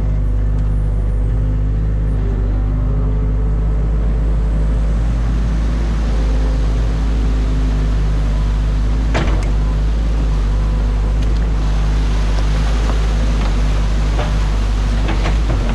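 Excavator diesel engine running steadily, heard from the operator's cab. From about halfway, the rush of water builds as the breached beaver dam lets water pour over the weir. A sharp knock comes about 9 seconds in and another near the end.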